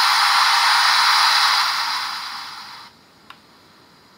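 Static hiss from the built-in speaker of a Sharp Vision 7-inch FPV monitor, whose 5.8 GHz receiver is picking up no signal. The hiss is loud at first, then fades as the volume is turned back down, and cuts off about three seconds in.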